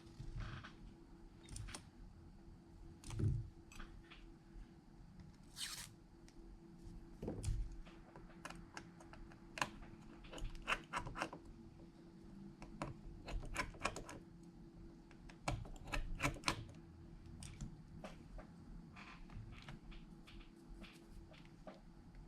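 Small hand tools clicking and tapping irregularly against a phone's parts during repair work, over a faint steady hum.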